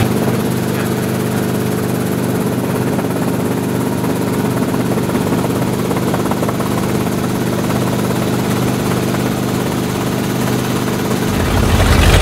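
Steady engine drone, a low hum with several even tones that hold one pitch without revving. About a second before the end, a louder, deeper engine sound comes in.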